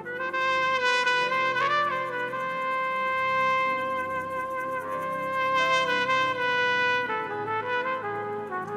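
Trumpet playing worship music, holding one long sustained note for most of the stretch over soft backing chords, then stepping down through a few shorter notes near the end.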